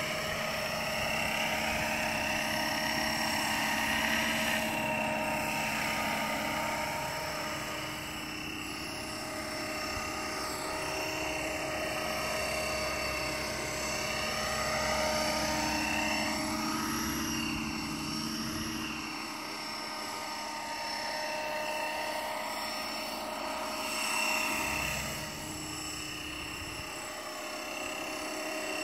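500-size radio-controlled scale helicopter with an Agusta A109K body in flight: a steady high whine over rotor hum. The pitch sweeps up and down each time it passes by.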